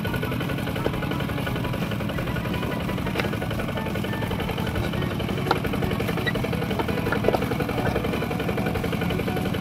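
Kubota RT120 walk-behind tractor's single-cylinder diesel engine running steadily with a rapid, even beat while the tractor is stuck in mud. A few short clicks come through it.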